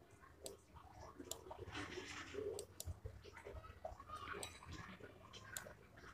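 Faint, scattered short clicks and soft small noises, with no steady sound under them.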